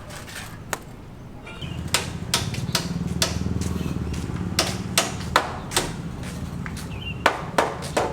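A motor running steadily, starting about a second and a half in and dying down near the end, with a string of sharp knocks and clacks over it.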